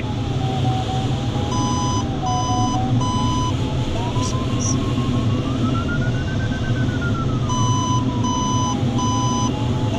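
Steady airflow rush inside a glider's cockpit, with the variometer's continuous audio tone gliding in pitch, rising about six seconds in and dropping again as the climb rate changes. Twice a group of three short electronic beeps at a fixed pitch sounds over it, about a second and a half in and again about seven and a half seconds in.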